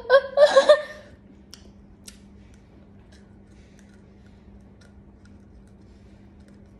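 A short vocal burst in the first second, then faint scattered ticks over a low steady hum.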